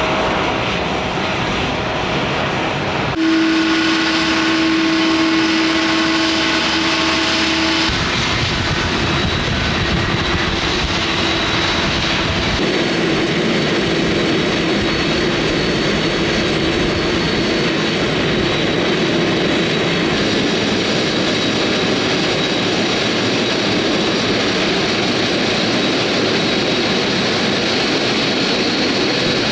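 Airliner engines running close by: a loud, steady rush with high whining tones. The sound shifts abruptly about 3 seconds in and again about 8 seconds in.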